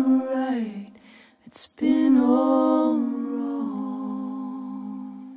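A solo voice singing unaccompanied: a phrase ends on a falling note, then after a breath one long final note is held, stepping down once and fading out.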